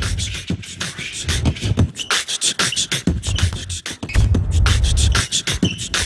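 Background music built on fast, crisp percussive hits. A heavy bass beat drops out about half a second in and comes back about four seconds in.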